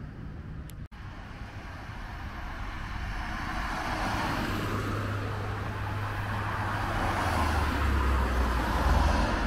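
Street traffic: a motor vehicle approaching, its engine rumble and tyre noise growing steadily louder and peaking near the end.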